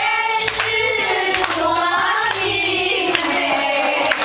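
A group of women singing together into microphones, with some hand clapping.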